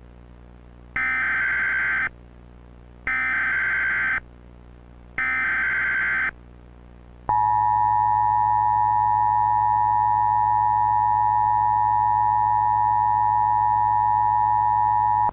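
Emergency Alert System tones: three one-second warbling data bursts of the EAS header, about a second apart, then the steady two-tone attention signal held for about eight seconds before it cuts off.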